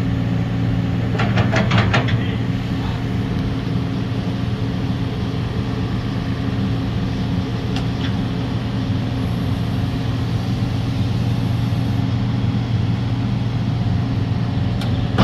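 Heavy excavator diesel engines running steadily at a working idle. A short burst of metallic clanking comes about a second in.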